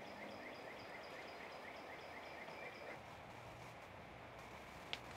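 Faint outdoor ambience with a rhythmic chirping, about four short chirps a second, that stops about three seconds in; a single sharp click near the end.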